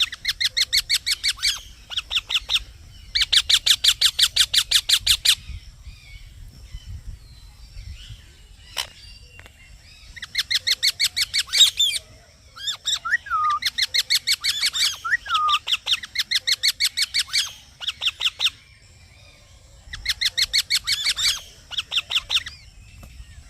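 Green parrot, an Indian ringneck parakeet, calling in rapid runs of shrill chirps, about nine a second, in bouts of one to two seconds with short pauses between them. Near the middle, a couple of lower sliding notes break in among the chirps.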